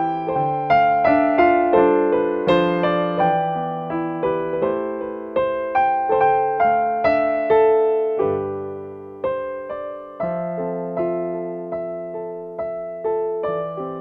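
Background music: a slow keyboard melody of single struck notes over a low bass line, each note ringing and fading away.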